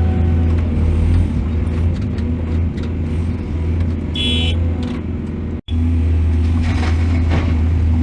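Heavy diesel engine of a mining excavator running steadily with a deep drone, with scattered knocks and a short high tone about four seconds in. The sound cuts out for an instant just before six seconds in.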